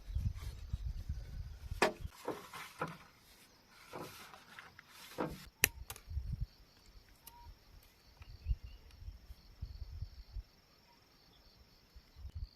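Scattered sharp knocks and taps of wood or bamboo being worked, most of them in the first half. From about halfway, a faint steady insect chirring sits high above them.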